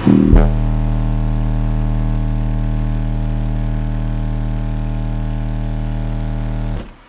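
Car-audio subwoofers (two 12-inch subs) playing a steady low bass tone at about 39 Hz, measured at about 143.7 dB, heard as a loud hum with many overtones. It starts abruptly, its level sags slightly as it holds, and it cuts off shortly before the end.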